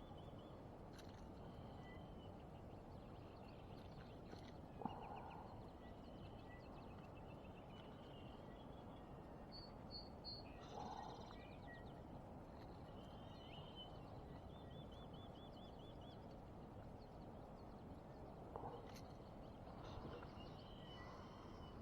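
Birds calling and trilling, with several high chirps and rapid repeated notes scattered throughout, over a faint steady hiss. A few short soft knocks come about 5, 11 and 19 seconds in.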